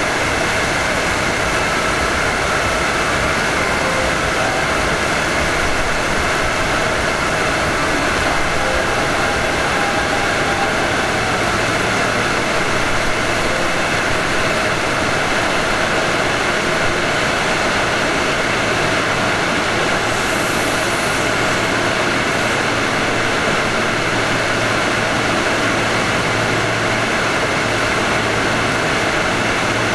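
Steady noise of a Hanshin 5500 series electric train, heard from its front end, with faint steady tones and a low hum and no sharp clicks.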